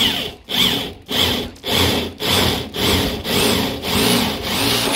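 Power drill with a twist bit boring through the thin steel roof panel of a Ford Explorer, the bit grinding and squealing in the metal in short repeated bursts, about one and a half a second, running more steadily near the end.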